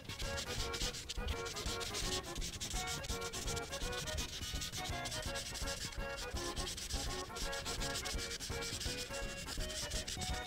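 Prismacolor marker tip rubbing across paper in rapid back-and-forth strokes as a large area is filled in.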